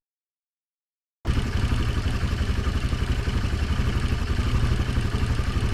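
An engine running steadily with a fast, even pulsing, starting suddenly after a little over a second of silence.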